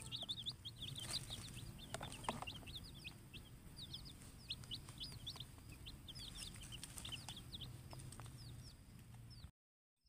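A group of baby chicks peeping, many short high cheeps overlapping at several a second. The sound cuts off just before the end.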